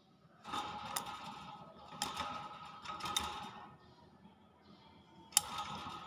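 Hill myna moving about its wire cage: about four short rustling bursts with sharp clicks, as of feet and wings on the wire and the perch. The sharpest click comes near the end.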